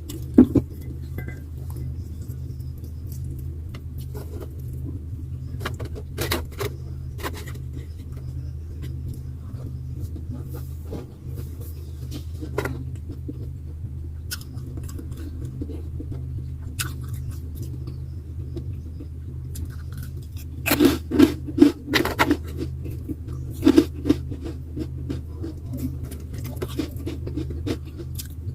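Eating at a table: scattered clicks, scrapes and crunches of food, utensils and packaging, busiest about three-quarters of the way through, over a steady low hum.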